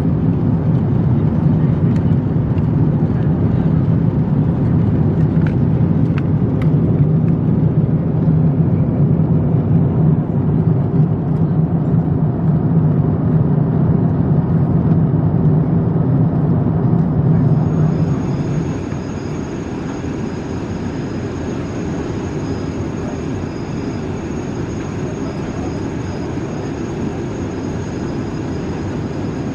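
Steady cabin noise of an Airbus A350-900 in cruise: a low, even rush of airflow and engines. About two-thirds of the way in it steps down a little and turns thinner, with a faint high whine on top.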